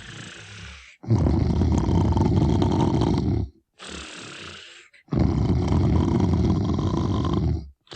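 Br'er Bear's recorded snoring from a theme-park ride's audio: two long, rough, rattling snores, each about two and a half seconds, with a softer, quieter breath before and between them.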